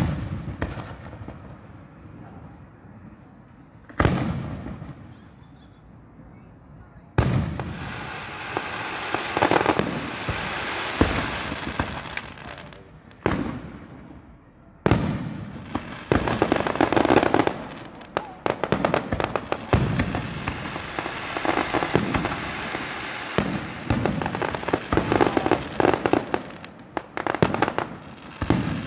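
Aerial firework shells bursting: single booms about four and seven seconds in, each trailing off in a rolling echo, then rapid volleys of bangs and crackling from about sixteen seconds on.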